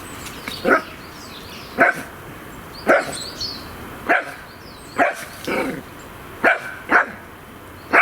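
Dog barking in a playful mood: about eight short, sharp barks, roughly one a second.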